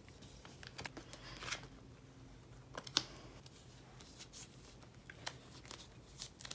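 Quiet rustling and sliding of clear plastic binder pocket pages as sleeved photocards are slipped in and out, with scattered light clicks, the sharpest about three seconds in.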